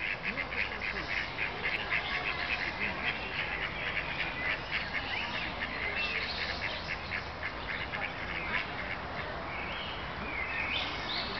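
Mallard ducks quacking on a pond: a fast run of short calls for about the first half, then fewer and more spread out.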